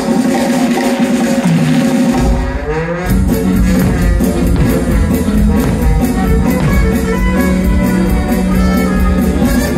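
Loud instrumental music from the show's soundtrack. A steady drum beat comes in about two to three seconds in.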